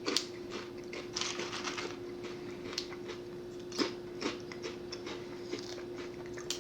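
Irregular crisp crackles and crunches from freshly microwaved pork rinds being eaten, over a steady hum.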